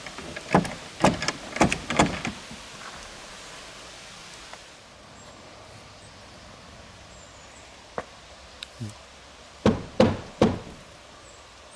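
Knocking on a tall wooden plank gate with its metal wolf-head door knocker: about six quick knocks in the first two seconds. After a pause come three more loud knocks near the end.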